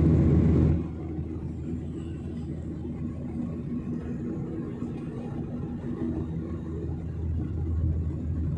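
Steady low drone of a jet airliner's engines and airflow heard inside the cabin in flight. It is louder and hissier for the first second, then settles into an even rumble with a steady hum.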